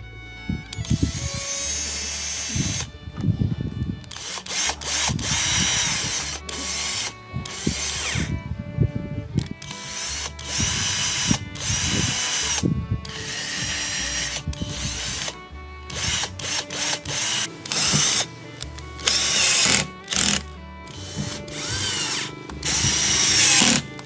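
Power drill-driver running in repeated short bursts, each with a motor whine that rises and falls, driving screws through a steel mending plate into a refrigerator cabinet. Background music plays underneath.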